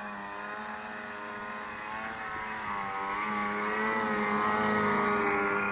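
Ski-Doo Mach Z 1000 SDI snowmobile's two-stroke twin engine running under throttle in deep powder, its pitch wavering up and down. It grows louder as the sled comes close about four seconds in, then eases off near the end.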